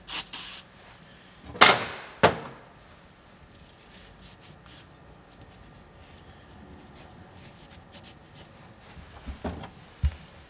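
A short hiss of an aerosol spray can sprayed into a freshly reamed kingpin bore, followed about a second later by a louder sharp clatter of tools on the bench. Then mostly quiet, with a few light metal knocks near the end as the kingpin is handled.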